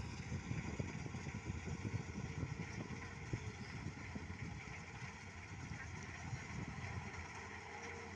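New Holland combine harvester's engine running steadily, with a low rumble.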